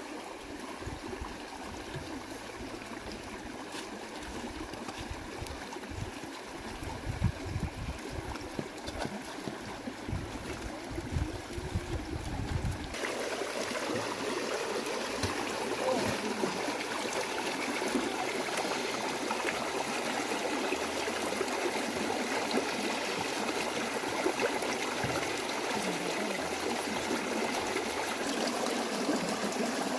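A small, partly iced-over stream running and trickling over stones, louder and fuller after a cut about halfway through. Low rumbling sounds come and go in the first half.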